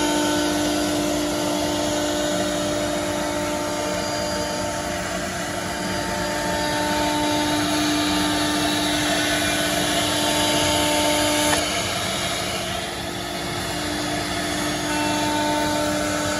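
ALCA 2030-3S CNC router spindle whining at a steady pitch as it routes grooves through melamine-faced board, over a rushing noise of cutting and dust extraction. The whine drops away for a few seconds about twelve seconds in, then returns.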